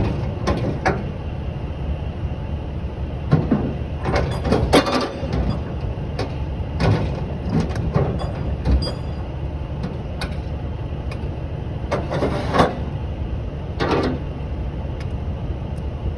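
Steel tie-down chain and hooks clanking and rattling against a flatbed trailer's side rail as a load is chained down: irregular sharp metal strikes every second or two, over a steady low rumble.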